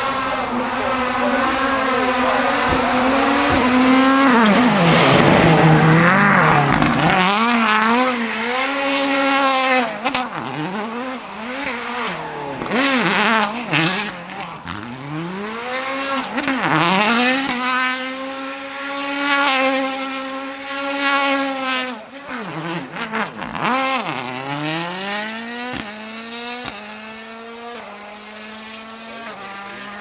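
Ford Fiesta WRC's 1.6-litre turbocharged four-cylinder engine revved hard and dropping again and again as the car spins donuts, with tyres squealing on the tarmac. Near the end it accelerates away, rising through the gears with quick upshifts as the sound fades.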